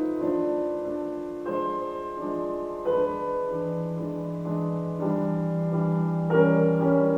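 Solo piano music played through a Sonos Era 300 speaker and picked up by a microphone: slow, sustained chords that change every second or so, with no drums.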